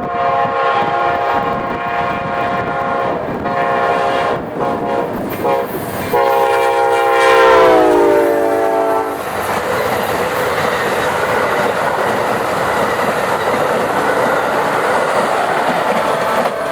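A GE P42DC passenger locomotive's multi-note air horn sounds in a few blasts; the last blast drops in pitch as the locomotive passes. Then the passenger cars roll by with steady wheel-and-rail noise and clickety-clack.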